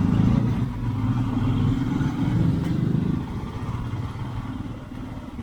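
Motorcycle engine running as the bike is ridden, a dense low rumble that eases off and drops in level about three seconds in.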